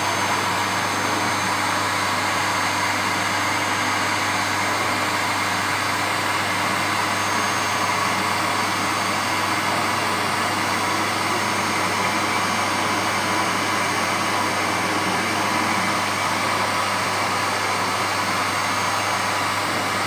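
Canister vacuum cleaner running steadily, an even rush of air and motor hum, with its floor head being pushed over a carpet.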